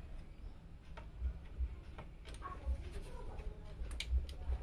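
Scattered sharp plastic clicks and knocks from a PCIe power cable connector being handled and pushed into the graphics card's 8-pin power socket, the sharpest click about four seconds in, over dull low bumps from handling.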